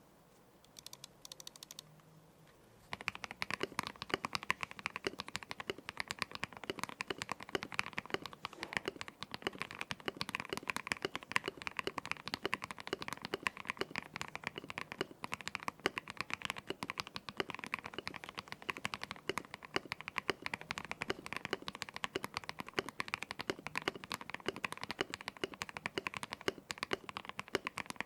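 Mechanical keyboard (Ikki68 Aurora with an aluminium plate, tape mod and foam dampening) fitted with lubed KTT Strawberry linear switches and PBT keycaps, typed on continuously and fast. The dense keystroke clacks start about three seconds in, after a few faint ticks.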